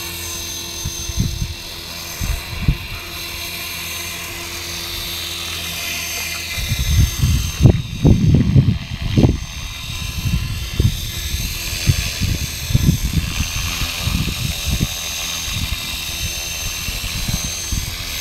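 Align T-Rex 450 Pro electric RC helicopter hovering: a steady whine from its brushless motor and rotor. From about six seconds in, low rumbling bursts hit the microphone, loudest around eight to nine seconds.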